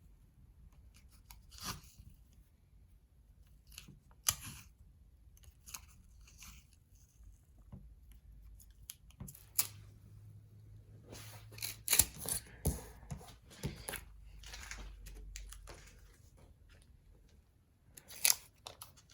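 Painter's tape being pulled off the roll and torn, in short scattered rasps and crackles, about half a dozen times.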